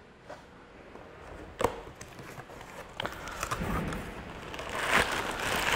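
Handling noises: a few sharp clicks and knocks, then rustling that grows louder toward the end, as a bowling ball is brought out to be shown.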